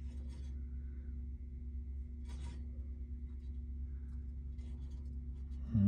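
Steady low hum with a few faint, brief rustles and tiny clicks.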